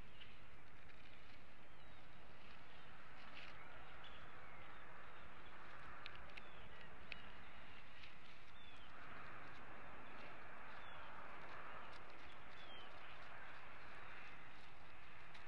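Steady outdoor background hiss with short, high chirps from a small bird, each falling in pitch, repeated every second or two, and a few faint clicks. The hiss swells for a few seconds past the middle.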